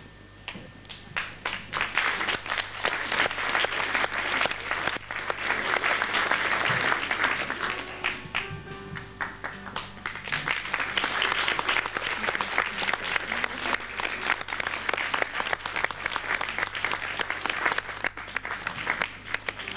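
Audience applauding, the clapping building up about a second in and carrying on steadily.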